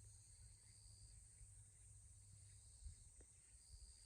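Near silence: faint outdoor background with a steady high-pitched insect chirring and a low rumble, and one faint tick about three seconds in.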